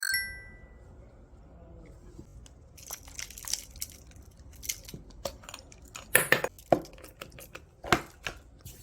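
A short bright chime at the very start, then from about three seconds in irregular crinkling and clicking, like packaging or paper being handled.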